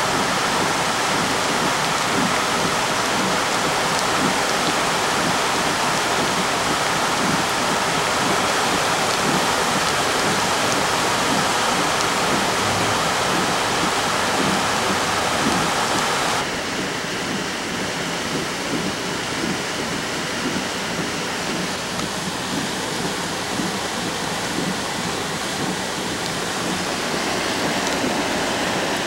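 Floodwater rushing down a storm-swollen creek, a steady loud rush of water. About halfway through it drops suddenly to a quieter, steady water noise.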